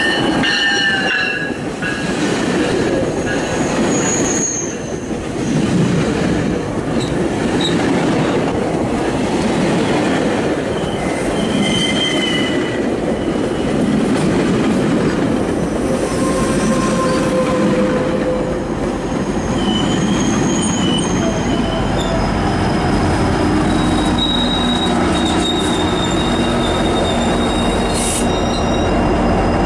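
A GO Transit bi-level commuter train rolls past slowly as it brakes into a station: a steady rumble of wheels on rail, with drawn-out high squeals from the wheels and brakes. Near the end, the MP40 diesel locomotive pushing at the rear passes, adding a deeper, steady engine rumble.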